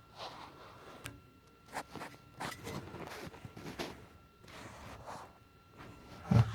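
Scattered clicks, scrapes and rustles of hands and tools working on a furnace's sheet-metal cabinet, with a heavier thump near the end.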